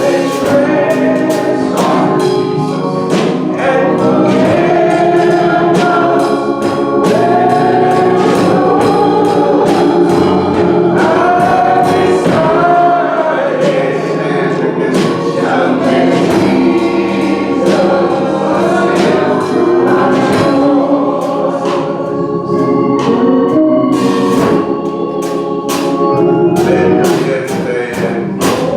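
Church choir singing a gospel song, with sustained organ chords and a steady percussive beat.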